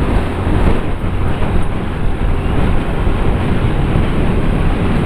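Motorcycle riding at road speed: steady wind rush on the microphone over the engine and tyre noise. An oncoming lorry goes by in the other lane about a second in.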